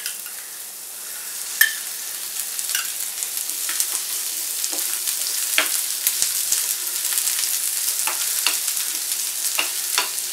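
Chopped onions sizzling as they fry in a non-stick pan, stirred with a plastic spatula that scrapes and taps against the pan now and then; the sharpest tap comes about one and a half seconds in. The sizzle grows a little louder after about three seconds as the onions are browned.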